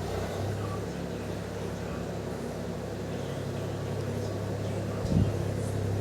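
Steady low hum with one brief knock about five seconds in.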